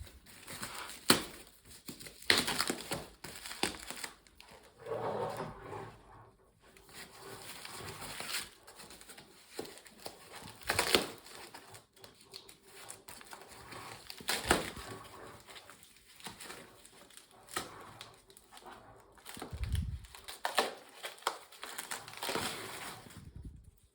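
Packaging being unwrapped and handled: irregular crinkling and rustling, broken by sharp knocks and clicks.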